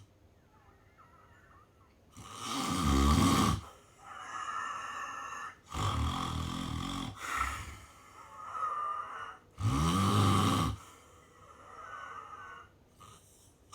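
A sleeping person snoring: three loud, rattling snores on the in-breath, about four seconds apart, with softer breaths out between them.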